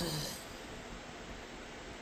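The tail of a man's spoken "oh", falling in pitch, then only a steady background hiss of room tone.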